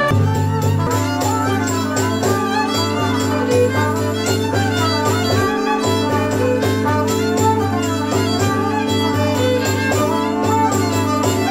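Polish traditional folk music: a fiddle playing an ornamented melody over a low held drone and a steady beat.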